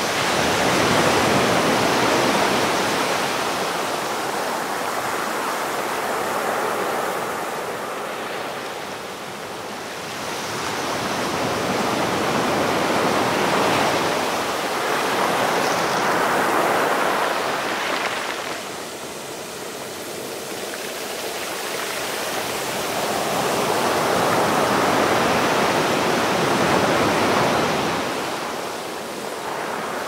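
Ocean surf: waves breaking and washing up the shore as a continuous rush of noise that swells and eases three times, about every ten seconds.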